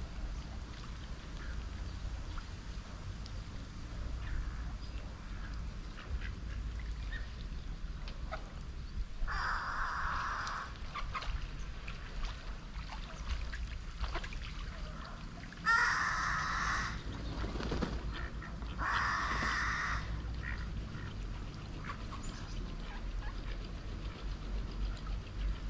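Ducks calling: three bursts of rapid quacking, each a second or so long, about nine, sixteen and nineteen seconds in.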